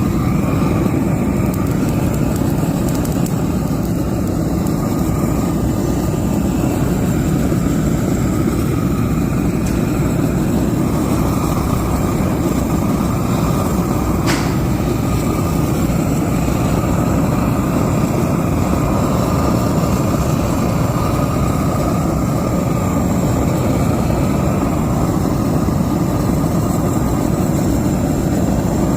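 Welding arc crackling and hissing steadily without a break, with one sharp click about halfway through.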